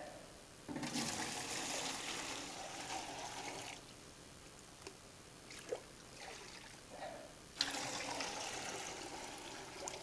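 Water running in two spells: one of about three seconds from about a second in, and another of about two and a half seconds near the end, with a few light knocks in between.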